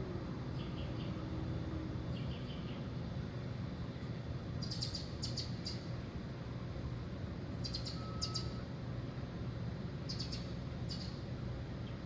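A small bird chirping: quick clusters of three or four short, high chirps repeated every two to three seconds, over a steady low background rumble.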